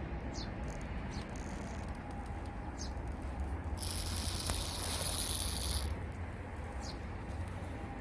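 Outdoor garden ambience: a steady low rumble of wind on the microphone, with a few short high chirps of small birds spaced a second or two apart. About four seconds in, a high hissing buzz sets in for about two seconds, then stops.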